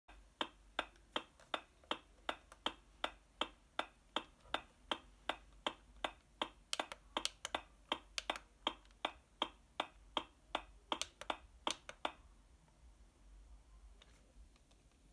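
A regular series of sharp clicks, about three a second, that stops about twelve seconds in.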